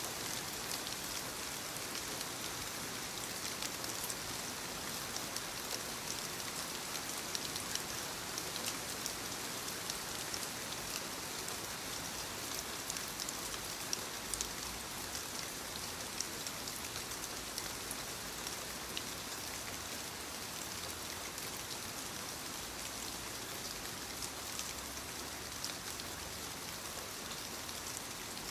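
Soft, steady rain falling on leaves, a constant patter with many small individual drops ticking through it.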